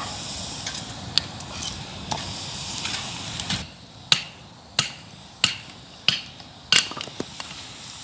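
A campfire crackling, then firewood being split into kindling with about six sharp chopping knocks, roughly two-thirds of a second apart, starting about halfway through.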